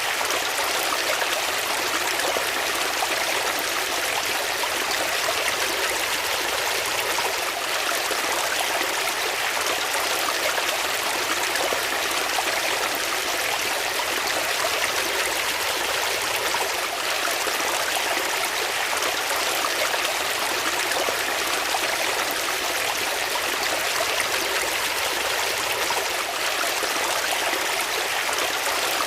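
Flowing water running steadily, a continuous, even rush with no breaks or changes.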